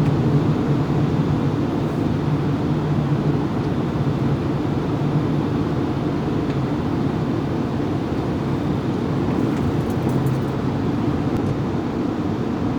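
Steady flight-deck rumble and hum of an Airbus A380 taxiing on the ground, from its idling engines and the cockpit air. A low hum comes up in the first few seconds and again about ten seconds in.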